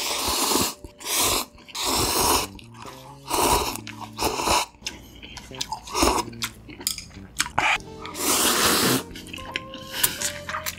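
Spicy instant noodles being slurped up off chopsticks in a string of short, noisy slurps, the longest about a second long near the end, with soft background music underneath.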